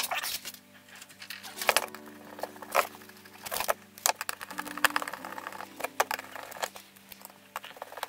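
Clatter and sharp knocks of OSB boards and a screwdriver handled on a wooden workbench, a dozen or so irregular knocks, over quiet background music.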